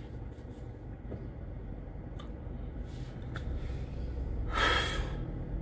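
Low steady rumble inside a car, with a man's loud breath out about four and a half seconds in.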